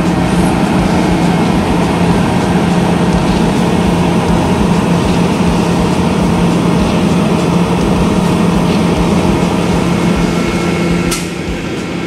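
Concrete mixer truck's diesel engine running steadily with a low hum; the sound drops slightly and changes about 11 seconds in.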